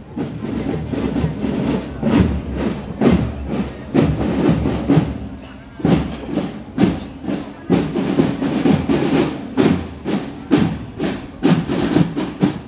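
Children's marching drum band playing a marching beat: a heavy drum stroke about once a second with quicker drumming between.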